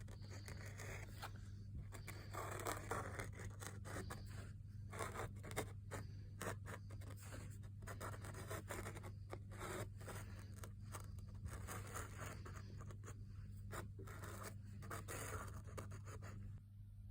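Scratchy, irregular strokes of a brush working paint onto a canvas, over a steady low hum.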